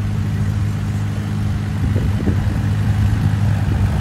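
Vintage farm tractor engine running at a steady low speed as the tractor is driven slowly.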